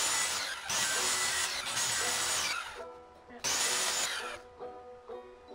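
Handheld circular saw cutting a board in three short bursts, each a second or two long, with a high whine over the cutting noise. Banjo background music plays under it.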